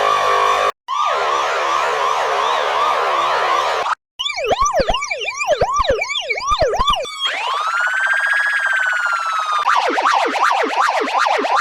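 Police siren switching through its tones, each cut off abruptly: a fast warble, then a quick repeated up-and-down yelp about four seconds in, then one long wail that rises and slowly falls, then a rapid pulsing tone near the end.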